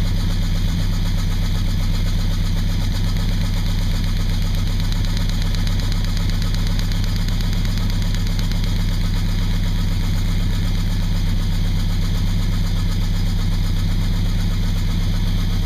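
Chevy V8 engine idling steadily, with an even beat and no change in speed. It is being run so that its lifters and rocker arms can be adjusted while it runs.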